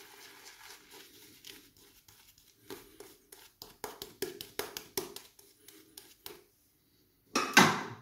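Semogue 820 boar-bristle shaving brush working lather over the skin of the jaw and neck: soft scratchy brushing, then a run of short strokes about two to three a second. A brief louder noise comes near the end.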